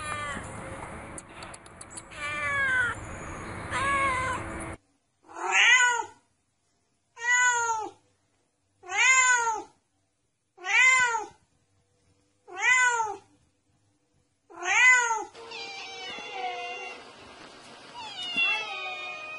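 Domestic cat meowing repeatedly, each meow rising and then falling in pitch. In the middle stretch six meows of the same shape come about two seconds apart with silence between them. At the start and end, shorter meows sound over background noise.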